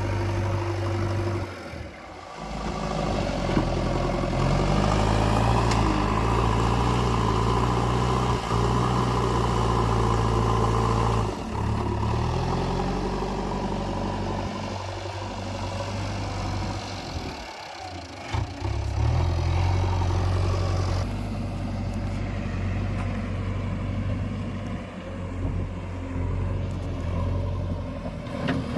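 JCB 3DX Eco Xcellence backhoe loader's four-cylinder diesel engine running under working load, its note stepping up and down as the engine is worked harder and eased off, with a few short dips.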